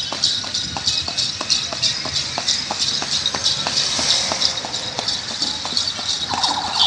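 Hooves of a carriage horse pulling a gadi clip-clopping on a wet street in a steady rhythm, about four hoofbeats a second. A brief buzzing tone comes in near the end.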